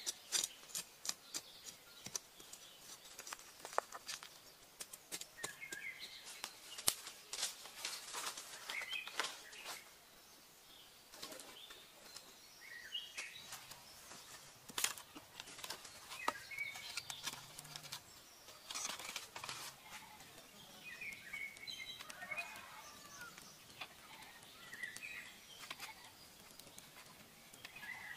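Hands at work on the ground: a blade scraping in loose soil and green wooden sticks knocking and clattering as they are stacked, in many short sharp clicks and knocks. Birds chirp briefly now and then.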